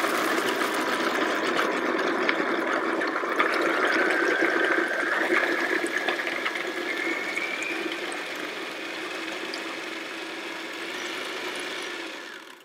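Food processor running continuously, blending chickpeas, garlic, lemon and water into a thick hummus paste. It starts abruptly, and a whine in the motor rises in pitch partway through as the level slowly eases off. It stops suddenly just before the end.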